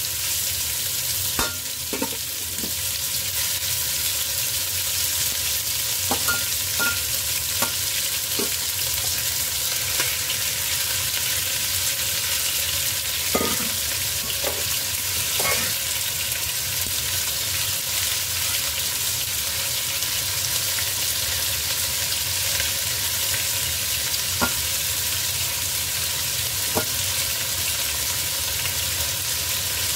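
Diced chicken sizzling steadily in hot oil in a stainless steel pot, with scattered clinks and scrapes of a metal spoon stirring against the pot.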